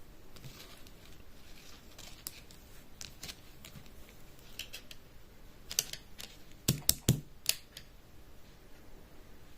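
Scattered sharp clicks and taps from small hard objects being handled, with a quick cluster of louder clicks about six to seven and a half seconds in.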